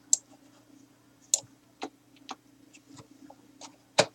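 Trading cards being handled and set down on a desk, about six sharp clicks and taps over four seconds, the loudest near the start and near the end.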